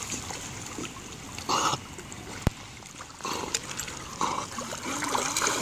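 Water splashing and sloshing as a dog swims through a shallow river, over the trickle of the current, with short louder splashes about a second and a half in and again around three seconds in.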